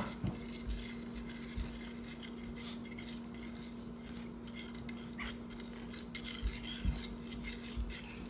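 A spoon stirring borax powder into warm water in a small plastic cup, with soft scraping and light clinks against the sides and a few light knocks, as the borax is dissolved until the water runs clear. A steady low hum runs underneath.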